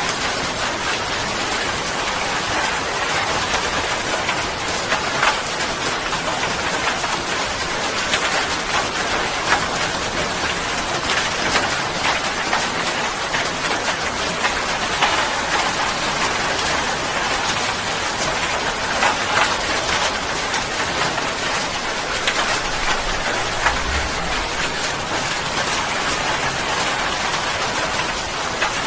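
Steady rain falling, a continuous patter with individual drops ticking out clearly on a hard surface.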